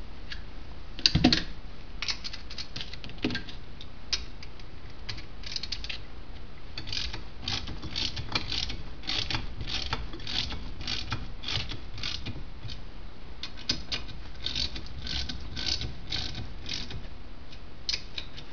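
Socket ratchet wrench clicking in repeated quick runs as it tightens the nuts on a brake servo mounting bracket, with a sharper knock about a second in.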